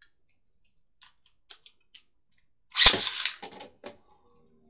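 A Beyblade launched into a plastic Beyblade Burst stadium: a few light plastic clicks, then about three seconds in a sharp loud crack as it is ripped off the launcher and strikes the stadium, with half a second of rattling clatter after it.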